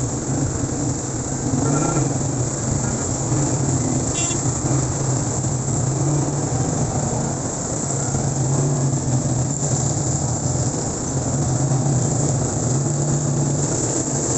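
Road traffic heard from a moving vehicle: a steady engine hum under an even hiss of wind and road noise.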